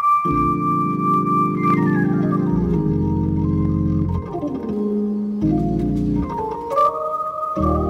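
An organ playing slow, held chords that change every second or two.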